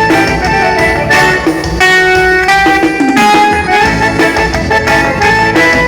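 Dance-band music in an instrumental passage between sung lines, led by guitar over a steady beat.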